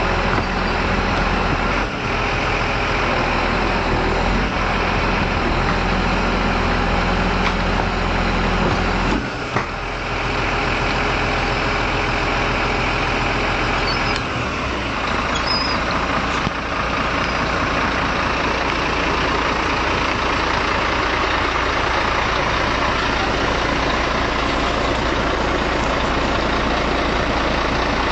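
A heavy engine running steadily, with a brief dip about nine seconds in and a change in its low note around fourteen seconds.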